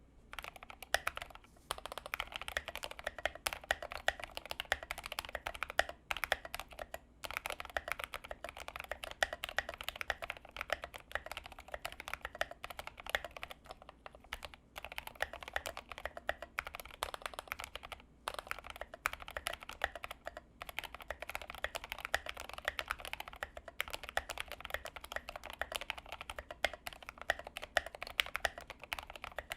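Tokyo60 mechanical keyboard with Gateron White switches on 60 g springs, typed on continuously in fast, dense keystrokes, with a few brief pauses.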